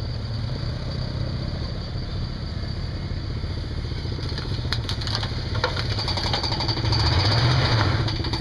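Jeep Grand Wagoneer's V8 engine running at low revs as the truck creeps its front wheel up a steel ramp, pulling harder and louder near the end.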